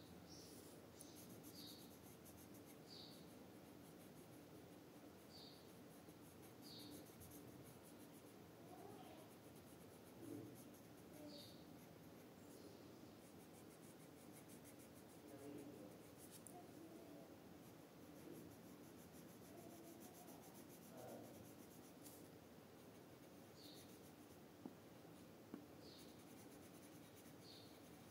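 Faint scratching of a red colored pencil shading on paper, in steady small strokes. Short high chirps sound now and then in the background, mostly near the start and the end.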